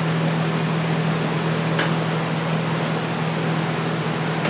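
Steady whooshing of a running fan with a constant low hum, and one faint click about two seconds in.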